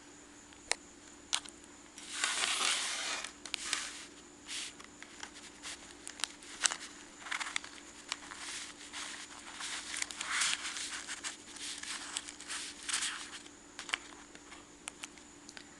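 Hands handling items in a survival kit pouch: crinkling and rustling of packaging with scattered small clicks, the loudest a dense, tearing-like rustle about two seconds in.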